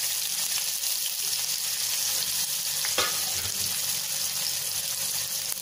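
Freshly added chopped onion and ginger sizzling in hot oil in a kadhai: a steady high hiss of frying, with one light knock about three seconds in.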